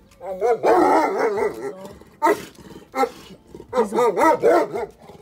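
A large dog barking repeatedly: a fast run of barks in the first second and a half, a couple of single barks, then another quick run of barks near the end.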